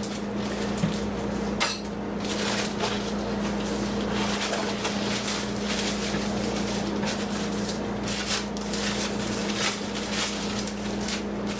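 Unboxing handling noise: rustling of packaging and clattering of plastic parts and accessories, with a few light knocks, over a steady low hum.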